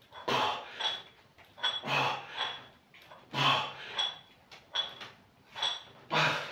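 Iron plates on a plate-loaded dumbbell clinking with each repetition of a lying one-arm triceps extension, about one rep every second and a half, each with the lifter's effortful breath or grunt.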